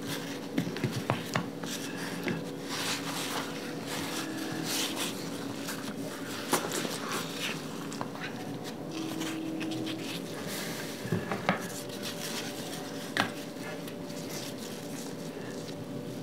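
Hands tearing gobi parathas and handling them on plates, with scattered small clicks and knocks of fingers, rings and plates, a few a little louder about a second in, near the middle and about three quarters through. A faint steady hum runs underneath.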